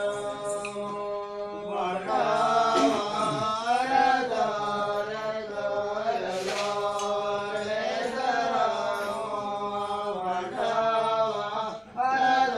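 A group of voices chanting a Kudubi Holi dance song together. It starts on a held note, then the voices rise and fall in a wavering tune, breaking off briefly just before the end.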